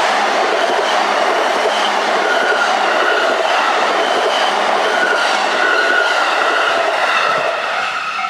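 A JR E233 series electric commuter train running past close by over a level crossing: a steady, loud rush of wheels on rail with clickety-clack. The level-crossing warning bell rings behind it and comes through more clearly as the train noise eases near the end.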